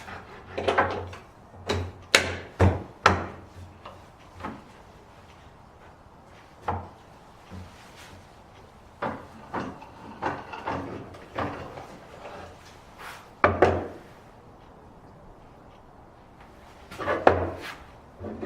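Irregular wooden knocks and clatter, pieces of wood being handled and set down, coming in clusters of several quick knocks with short pauses between.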